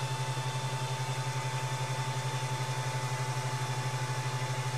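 Ender 3 Pro 3D printer's cooling fans running: a steady low hum with a fast, even pulsing and a thin, faint high whine above it.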